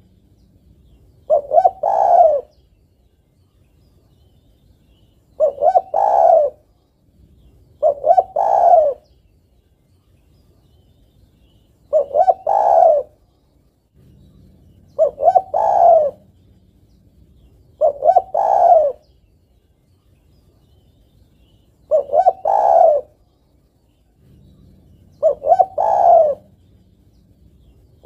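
Female spotted dove cooing, a phrase of two short notes and a longer drawn-out note, repeated about eight times at intervals of three to four seconds. This is the female's call to a male.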